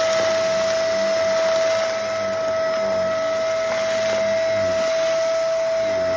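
Vacuum cleaner running on a rug with a steady high motor whine, sucking up food crumbs, with a couple of faint ticks of debris going up the nozzle.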